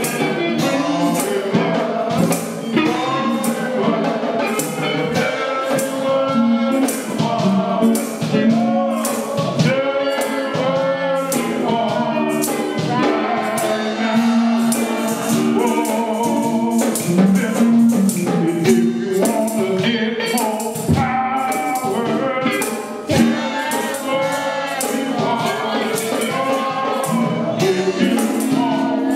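Gospel music in a church service: singing with a steady beat of tambourine and percussion.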